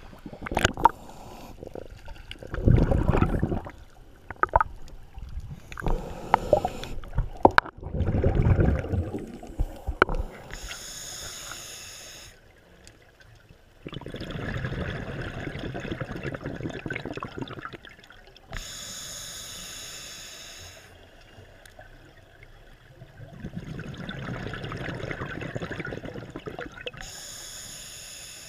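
Water splashing and sloshing around the camera at the surface, then underwater scuba breathing through a regulator: three hissing inhalations alternating with two longer bubbling exhalations, a slow breath roughly every eight seconds.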